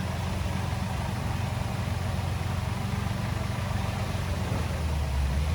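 Heavy-equipment diesel engine running steadily with a low, even drone.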